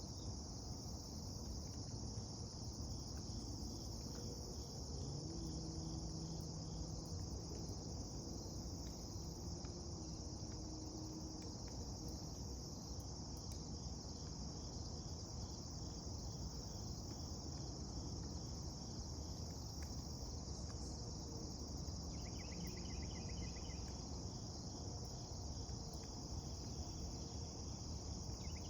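A steady, high-pitched insect chorus over a low rumble. Short bursts of rapid chirping come in twice near the end.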